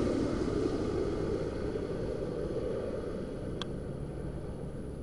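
Jet noise of a Boeing 737 MAX 8's CFM LEAP-1B engines on final approach: a low rushing sound fading steadily as the airliner flies away. A single short high click comes about three and a half seconds in.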